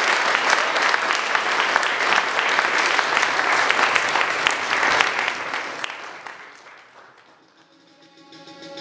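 Audience applauding, a dense patter of many hands clapping that fades out over the last few seconds.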